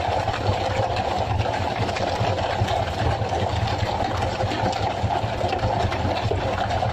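Fishing boat's engine running steadily with a constant hum.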